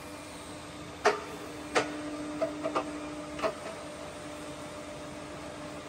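Hwacheon HMV-1100 vertical milling machine's feed drive running with a steady hum while the feed-rate selector is shifted to a faster feed: a string of sharp clicks and clunks between about one and three and a half seconds in, then the hum alone.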